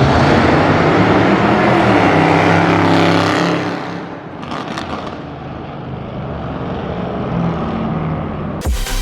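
Sports car accelerating hard with a loud exhaust for about three seconds, then passing away and fading, with a few crackles from the exhaust. The engine note carries on more quietly until music cuts in at the very end.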